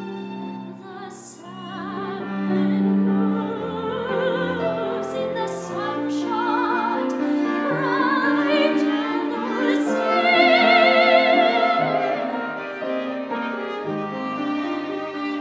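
Soprano singing a classical art song with wide vibrato, accompanied by violin, cello and piano. Her line climbs to a loud, held high note about ten seconds in.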